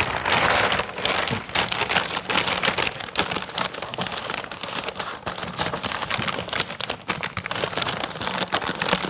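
Bosch plastic disposal sack crinkling and rustling continuously as it is handled, pushed into a wet/dry vacuum's container and worked over the intake socket, a dense crackle with no let-up.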